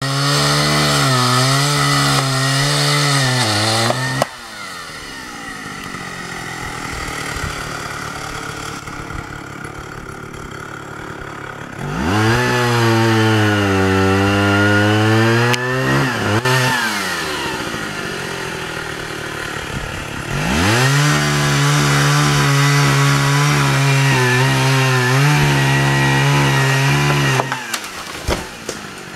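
Chainsaw revving to full throttle three times and dropping back to a lower, quieter running in between, while cutting a fallen oak. In the middle burst the engine pitch sags and then recovers.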